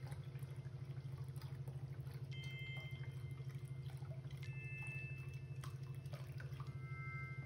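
Chicken broth pouring from a carton's spout into a plastic measuring cup, a thin stream of liquid running into the filling cup, over a steady low hum.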